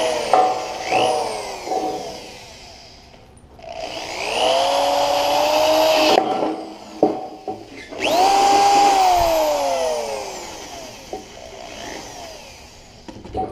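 Electric drill running in three bursts, its motor whine climbing as it spins up and falling as it winds down, while it opens up misaligned rivet holes in sheet metal. Short knocks come between the bursts.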